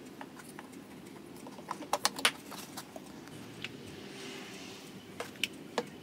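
Light, sharp clicks and taps: a quick cluster of four or five about two seconds in, and three more near the end.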